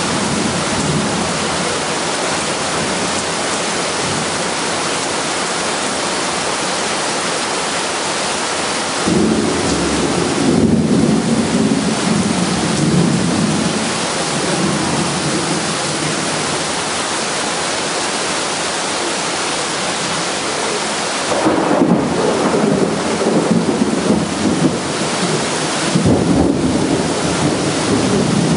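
Heavy rain pouring steadily onto concrete paving in a thunderstorm. Thunder rumbles about nine seconds in, and twice more in the last third.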